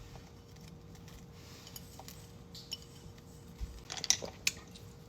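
Quiet kitchen handling sounds, with a few light taps and clinks about four seconds in.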